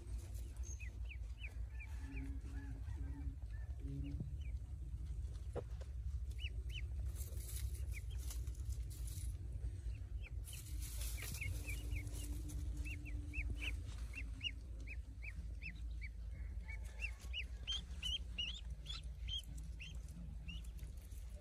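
Pekin ducklings peeping: many short, high, falling cheeps, scattered at first and coming in a quick run near the end. Some rustling as a duckling is handled in the straw, over a steady low rumble.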